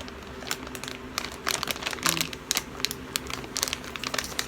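Plastic packaging crinkling as it is handled, holding a pack of empty lip gloss squeeze tubes: many short, irregular crackles.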